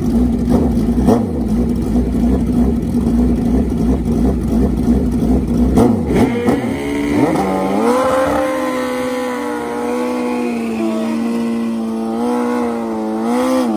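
Suzuki Hayabusa drag bike engine doing a burnout on the starting line. It runs steadily at first, then about seven seconds in climbs to a high rev held with a slight waver while the rear tyre spins and smokes.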